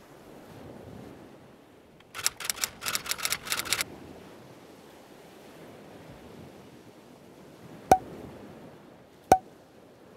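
Soft wash of sea-wave ambience under an animated intro, with a quick rattle of clicks about two seconds in, then two sharp click sound effects about a second and a half apart as the cursor clicks the subscribe button and bell.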